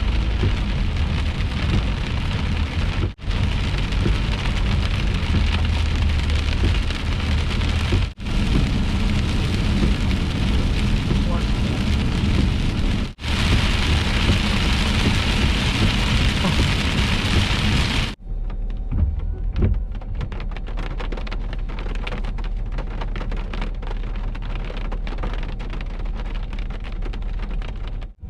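Heavy rain pelting a car during a thunderstorm, heard in short stretches broken by brief cuts. About eighteen seconds in it switches abruptly to a much quieter low rumble with faint scattered taps.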